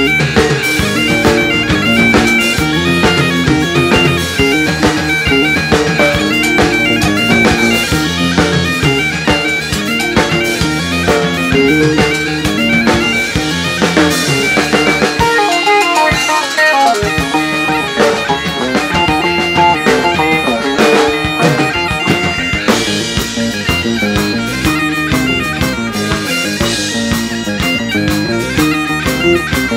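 Live rock band music led by bagpipes over electric guitar and a drum kit. The low end drops out for a moment around the middle, then the full band comes back in.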